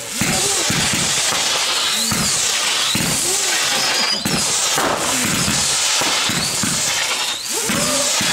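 Fireworks display with a steady stream of shells going up. Many overlapping whistling tails rise and fall in pitch over a constant loud hiss.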